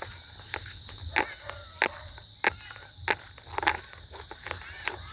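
Footsteps of someone walking at an even pace, about one and a half steps a second, over a steady high-pitched insect trill.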